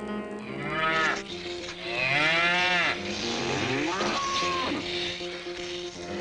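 Mooing: several drawn-out moos in a row, each bending down or arching up in pitch.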